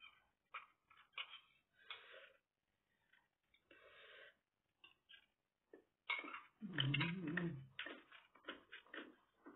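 Close eating sounds: a metal spoon clicking and scraping against a bowl and plate, with chewing, in many short irregular ticks. A louder, lower sound comes about seven seconds in.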